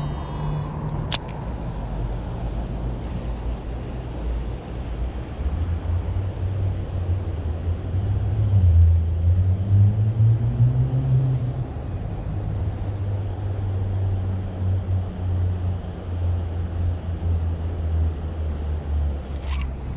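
Low, steady engine rumble of a motor vehicle, rising in pitch about nine seconds in and settling back a couple of seconds later.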